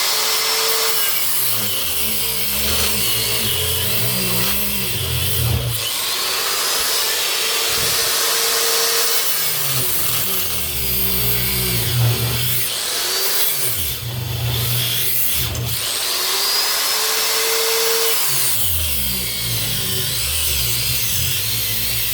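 Angle grinder cutting through the varnished copper windings of an electric motor rotor, running loud and continuous. The motor labours under the load, its pitch sagging and recovering about three times as the disc bites in; it is even hard for the grinder.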